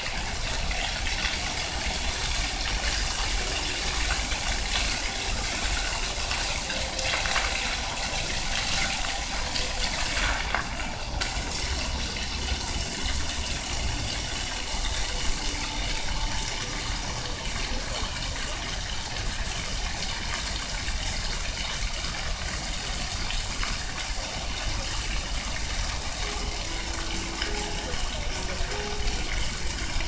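Floor fountain's water jets spraying up and splashing back down onto wet paving: a steady, even rush of water.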